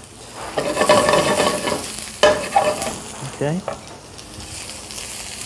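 Leeks and shiitake mushrooms sizzling in hot oil in a stainless steel sauté pan while a utensil stirs them, with a sharp knock about two seconds in.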